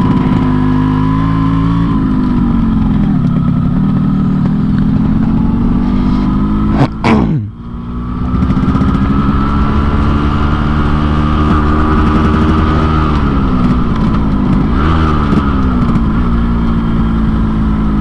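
Yamaha RX-King two-stroke single-cylinder motorcycle running under way, its exhaust set up in the Medan 'ngorok' style for a snoring note. The engine pitch rises and falls with the throttle, and it drops sharply and briefly about seven seconds in before picking up again.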